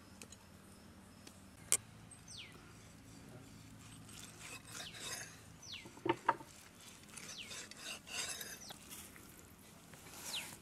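Cleaver work on raw seer fish over a wooden chopping stump: soft scraping and rubbing of fish on the block, with a few sharp knocks of the blade on the wood, one early and a quick pair about six seconds in. A bird's short falling whistle repeats in the background.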